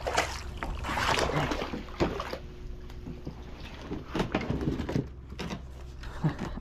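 Water splashing and sloshing around a kayak during a fish fight, with several sharp knocks against the hull.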